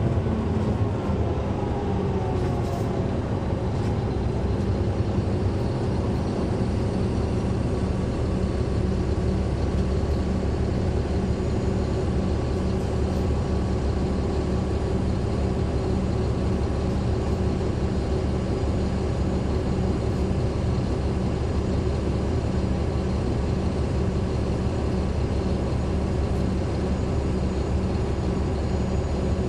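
Caterpillar C13 inline-six diesel engine of a NABI 40-foot transit bus, heard from the back seats inside the bus, running steadily with its engine cooling fans on. A whine falls in pitch over the first few seconds, then the engine holds a steady drone.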